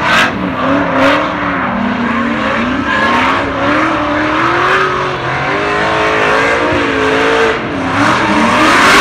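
Drift cars' engines revving high in tandem, the pitch rising and falling over and over as they slide through a corner, with tyres squealing.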